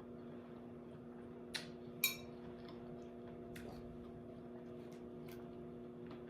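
A fork clinks sharply once against the salad bowl about two seconds in, with a few faint clicks and taps around it while the salad is eaten. A steady low hum runs underneath.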